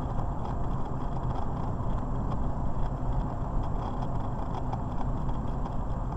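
Steady road and engine noise of a car driving at highway speed, heard from inside the cabin: an even low rumble of tyres and engine.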